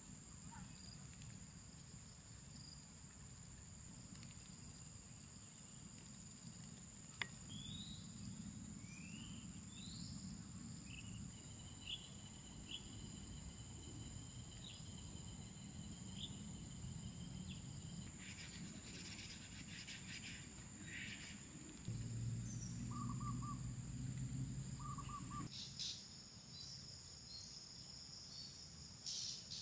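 Faint evening outdoor ambience: insects trilling on a steady high note, with short rising bird calls scattered through. A low hum comes in for a few seconds in the last third.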